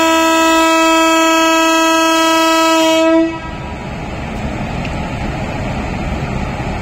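Horn of a WAG-9 electric locomotive sounding one long, steady chord that cuts off about three seconds in. It is followed by the rushing rumble of the train's wheels on the track as it passes.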